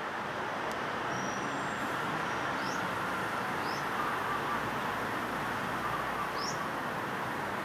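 Steady hum of distant city traffic, with a small bird giving three faint, short, high rising chirps.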